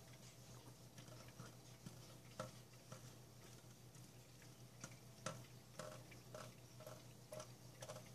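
Near silence broken by faint, irregular ticks of water drops falling onto a stainless steel sink, about one or two a second.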